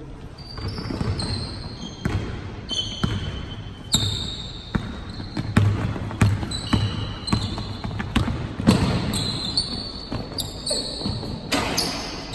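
A basketball bouncing over and over on a hardwood court floor, mixed with many short, high squeaks of sneakers on the wood.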